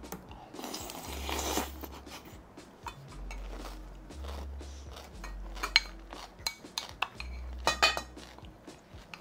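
Chopsticks and a metal spoon clinking and scraping against a small ceramic bowl as the last of the food is scooped out, with several sharp clinks in the second half. About a second in there is a short stretch of eating noise from a mouthful.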